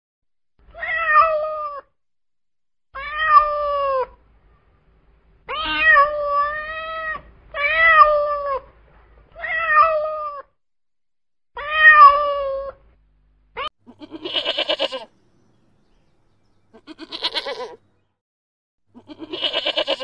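A domestic cat meowing about six times, each meow drawn out and bending in pitch. In the last third, a goat bleats three times with a quavering, wavering call.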